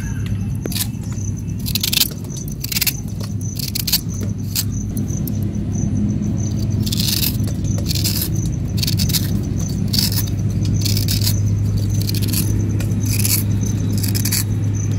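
Knife cutting and scraping the rind off a kadam fruit in short, sharp, repeated strokes at an uneven pace, with a steady low hum underneath.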